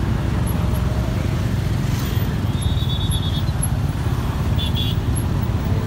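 Motorcycle riding slowly through heavy road traffic, its engine and road noise a steady low rumble on a helmet-mounted microphone. Short high-pitched beeps sound twice, around the middle and about a second later.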